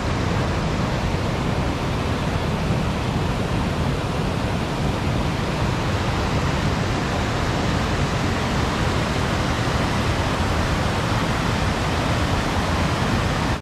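Steady rush of river water pouring over a weir and rocky cascades, an even noise that holds without a break.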